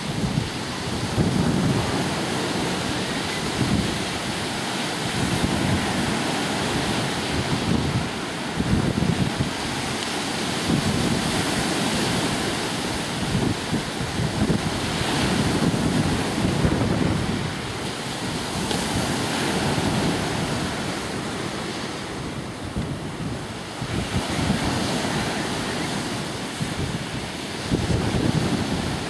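Wind buffeting the microphone in uneven gusts, over a steady hiss of lake waves breaking on the beach.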